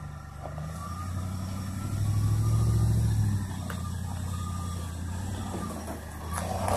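Full-size Chevy pickup's engine running as the truck crawls up a rutted dirt trail. It revs up about two seconds in, then settles back to a steady lower drone.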